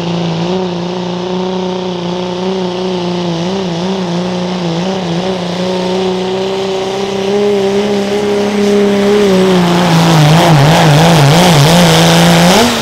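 Turbo diesel pickup truck engine at full throttle pulling a weight-transfer sled, held at high, steady revs. From about ten seconds in the pitch wavers quickly up and down, then the sound drops off sharply near the end as the throttle comes off.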